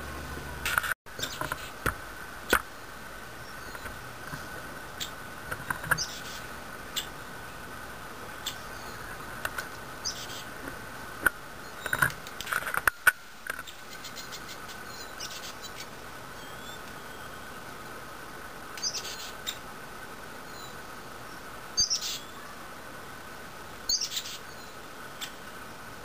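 Fledgling Nuttall's woodpeckers giving short, high squeaks every few seconds, with scattered sharp taps as they peck at suet in a wire feeder cage.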